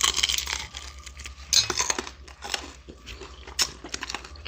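Close-up crunching and chewing of crispy fried chicken breading: a run of sharp, irregular crackles, with louder crunches at the start, about a second and a half in and about three and a half seconds in.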